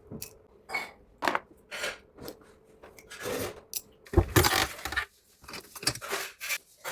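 Irregular handling noises of an order being packed: scattered clicks, crinkles and scrapes of items and packaging, with a louder knock and rustle about four seconds in.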